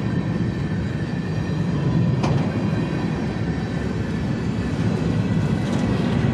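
Freight train's covered hopper cars rolling past close by: a steady rumble of steel wheels on rail, with a single sharp click about two seconds in.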